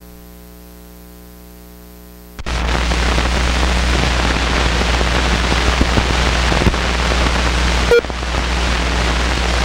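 Low electrical hum, then about two and a half seconds in the loud hiss and crackle of an old optical film soundtrack starts over it, running through the countdown leader. A few clicks and, about eight seconds in, a pop with a brief dropout.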